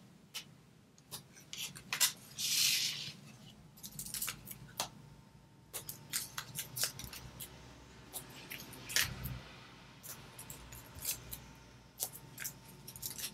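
Foam mounting tape being handled: small squares pulled off the roll, their backing peeled and pressed onto cardstock, giving scattered light clicks and taps with a brief rasp about two and a half seconds in.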